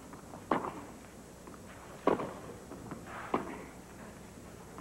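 Tennis ball struck back and forth with racquets in a baseline rally on clay: three sharp hits about a second and a half apart, with fainter ticks between them.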